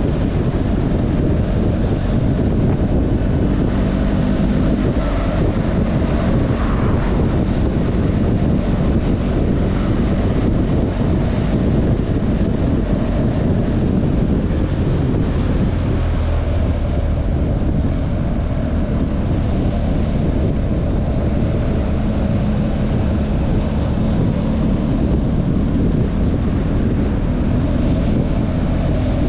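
Steady wind rush buffeting a helmet-mounted action camera's microphone at riding speed. Beneath it, a BMW R 1250 GS's boxer-twin engine runs steadily.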